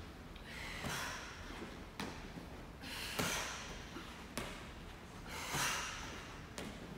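A 12-pound soft medicine ball slapping into hands as it is caught, about once a second, with a sharp breathy exhale on each sit-up and toss.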